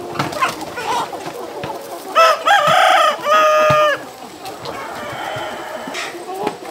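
A flock of chickens clucking, with a rooster crowing once loudly about two seconds in, a call of nearly two seconds.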